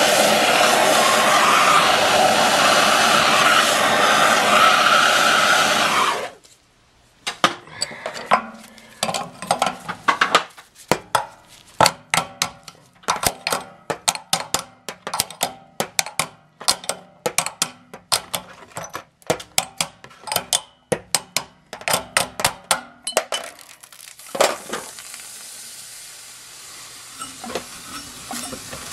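Plumber's torch flame hissing loudly at a copper pipe fitting, cut off suddenly about six seconds in. A long run of sharp metallic clinks and taps follows, several a second, then a fainter steady hiss with a few clicks near the end.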